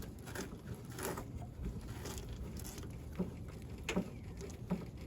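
A few light knocks, about three seconds in, near four seconds and shortly before the end, over a low steady background rumble.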